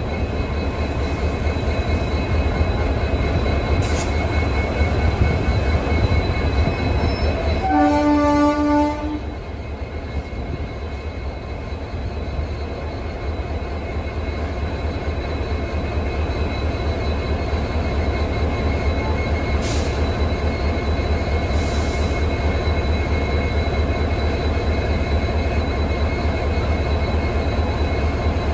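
WDG-4 diesel locomotive's engine running with a steady low hum, and one horn blast of about a second and a half about eight seconds in, sounded for departure.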